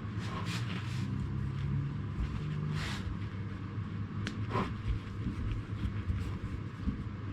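Steady low rumble of a workshop heater, with a few short rustles, a sharp click and a brief scrape of handling.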